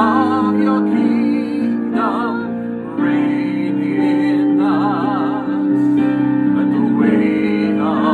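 A man and a woman singing a slow worship song together, with vibrato on the held notes, over an instrumental backing of sustained chords.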